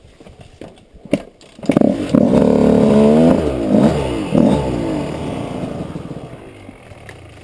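Off-road motorcycle engine revved in several throttle blips, its pitch rising and falling, then dying down over the last few seconds. A couple of sharp clicks come just before it.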